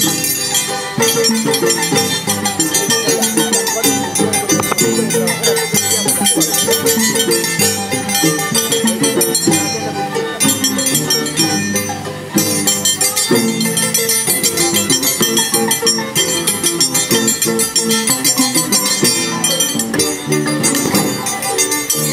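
Andean scissors-dance music played on violin and harp, with the metallic clinking of the dancers' tijeras (iron scissors blades) keeping the rhythm.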